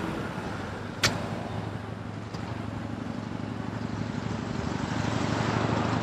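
A road vehicle's engine running with a steady low hum, growing gradually louder as it draws closer, with a single sharp click about a second in.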